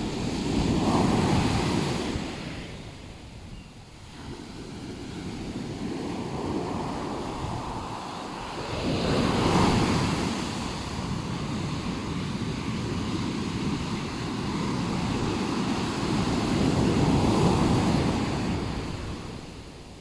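Ocean surf breaking on a beach: three waves swell and wash in, about eight seconds apart, each one rising to a loud crash and then fading.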